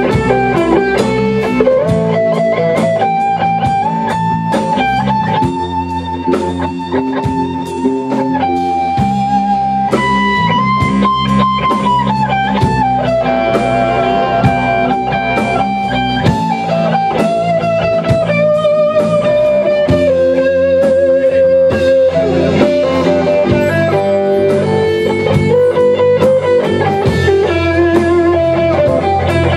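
Rock band playing an instrumental break: a lead electric guitar plays long, bent notes with vibrato over drums and backing guitar.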